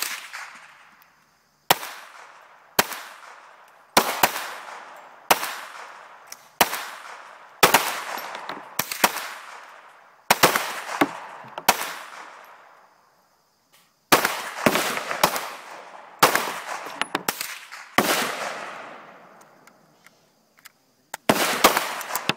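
Ruger 22/45 Lite .22 LR semi-automatic pistol firing a long string of single shots, about one a second with some quicker pairs, each sharp crack followed by a fading echo. The firing pauses for about two seconds near the middle and again near the end before a last quick group.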